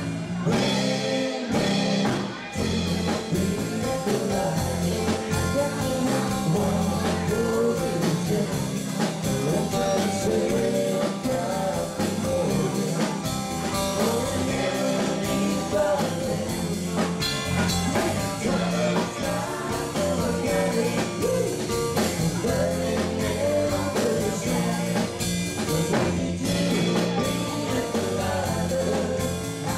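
Live country-rock cover band playing a song: singing at the microphone over electric guitar and drums.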